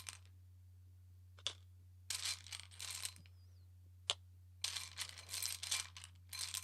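Tarot cards being handled and shuffled: two short spells of rustling with a couple of sharp clicks between them, over a low steady hum.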